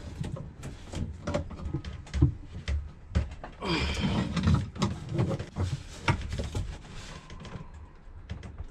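Hand-tool work on a seacock under a boat's cabin sole: metal pliers clicking, knocking and scraping on the fitting as it is tightened onto its thru-hull, with a short muffled voice about four seconds in.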